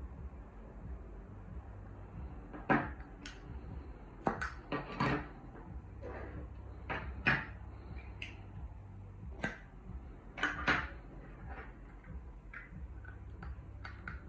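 Irregular clicks and knocks of small hard objects being handled and set down, about a dozen over the stretch, the loudest a few seconds in and near the middle, over a low steady background hum.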